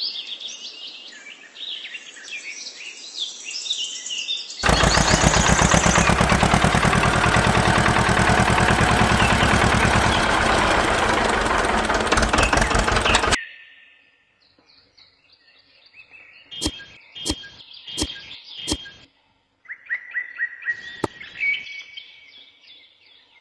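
Birds chirping, then a loud, fast-pulsing engine-like running sound that starts about four and a half seconds in, lasts about nine seconds and cuts off suddenly. After it come four sharp clicks and more bird chirps.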